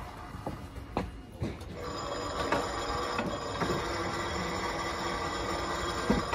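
A steady electric bell-like ringing, with a few sharp knocks in the first two seconds.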